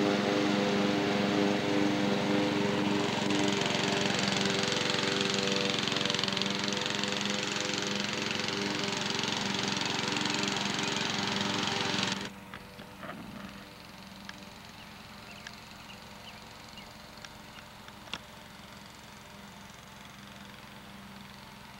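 Riding lawn mower engine running steadily. About twelve seconds in the sound cuts off abruptly, leaving a quiet background with a few faint clicks.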